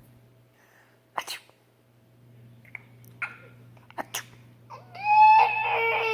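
A short, sharp sneeze about a second in, then a long, loud wailing cry whose pitch falls away near the end.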